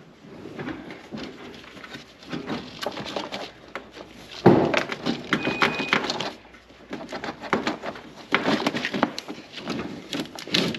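Plastic-sheathed engine wire harness being pushed and worked into place around the engine: irregular rustling, scraping and clicking of the loom against metal, with a louder knock about four and a half seconds in.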